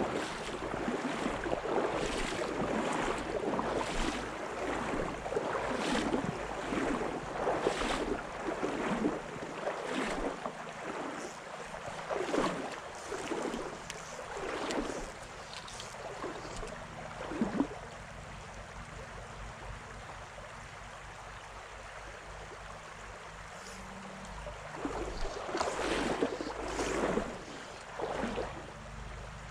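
Water of a small river rushing and sloshing in irregular surges, about one every second or two, over a steady low rumble. The surges ease off for several seconds past the middle and return near the end.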